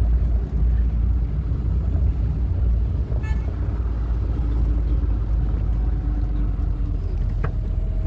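Steady low rumble of a road vehicle on the move, with no breaks or changes.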